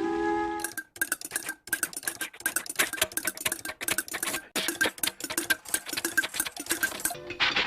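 Rapid, irregular clicking and tapping, several strokes a second with short gaps, starting under a second in and stopping shortly before the end, after a few sustained music notes fade out.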